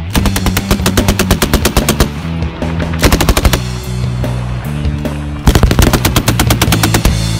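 Belt-fed machine guns firing rapid bursts of automatic fire, with the loudest, densest bursts near the end. Rock music plays underneath.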